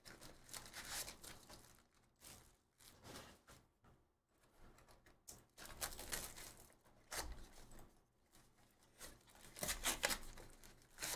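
Faint tearing and rustling as a Bowman's Best baseball card box is torn open by hand and its cardboard and paper handled, in irregular bursts, loudest about seven and ten seconds in.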